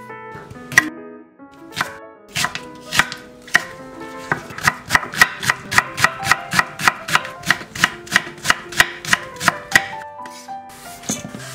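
Kitchen knife chopping green onion on an end-grain wooden cutting board: a few scattered chops, then from about four seconds in a fast, even run of about five chops a second lasting some five seconds. Soft background music plays underneath.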